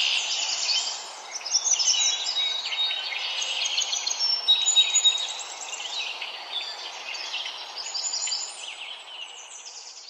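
Songbirds singing and calling over one another in a dense chorus of high chirps, trills and short whistles, over a steady background hiss, gradually fading toward the end.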